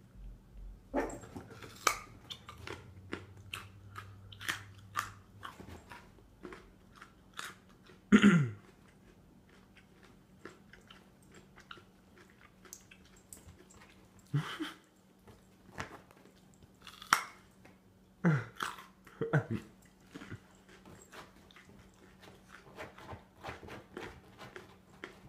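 A small dog chewing and crunching on a large raw carrot: irregular crisp crunches and bites, with a handful of louder knocks in between.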